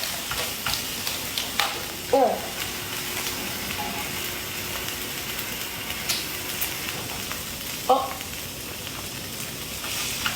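Food sizzling in a hot frying pan as rice is fried and stirred, with a steady hiss and a few short clatters of the utensil against the pan.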